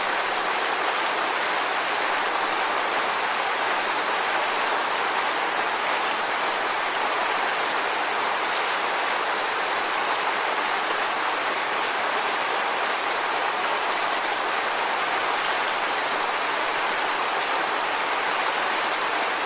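Waterfall sound used as white noise: a steady, even rushing hiss, mostly high with little low rumble, unchanging throughout.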